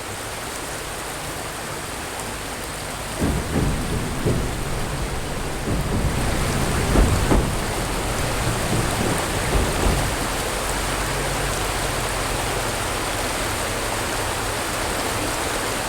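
Steady rush of river water flowing over the rocks, with irregular low rumbles from about three to ten seconds in.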